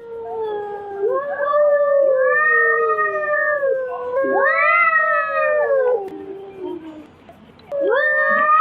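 Angry cat yowling before a fight: long, drawn-out calls that rise and fall in pitch, one running into the next for about six seconds. After a short lull, another loud yowl starts near the end.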